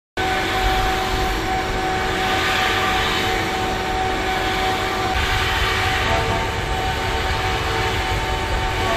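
A large engine or turbine running steadily, a constant rumble and hiss with a steady high whine over it, starting abruptly right at the beginning.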